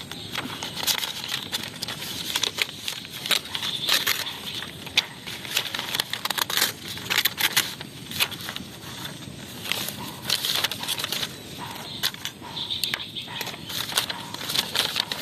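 Sheets of writing paper rustling and crackling as they are handled and folded, in quick irregular crinkles that come and go.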